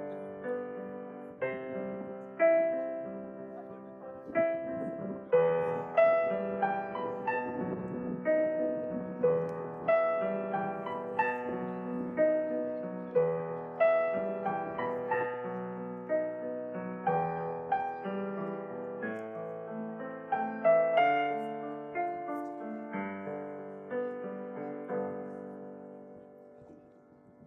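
Solo piano playing a slow, gentle piece of chords and single notes, each note struck and left to ring, fading away near the end.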